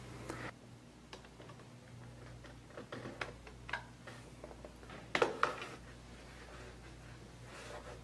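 Faint clicks, taps and scrapes of an external hard-drive enclosure and its USB cable being handled, plugged in and set down on a table, with a louder knock about five seconds in, over a low steady hum.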